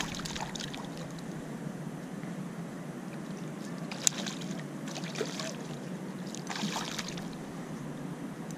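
Hooked trout splashing and thrashing at the water's surface in short bursts, three or four times, over a steady low rush. A single sharp click about four seconds in.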